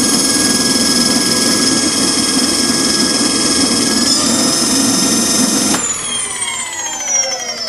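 Rewound QS outrunner electric motor running at full throttle, about 1300 rpm, with a steady high whine over a low hum; it runs properly now that the hall sensor wires are in a working order. Just before the end the throttle is released and the whine falls steadily in pitch as the motor coasts down.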